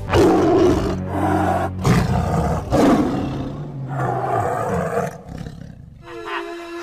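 Four loud roars, like a big cat's, one after another over background music, after which the music carries on alone.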